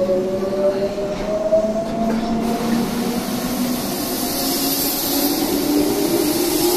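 Tobu 8000 series electric train pulling out of the station, its traction motors whining in several tones that climb slowly in pitch as it gathers speed. A steady hiss of running noise sets in about two and a half seconds in, and the whole sound grows louder.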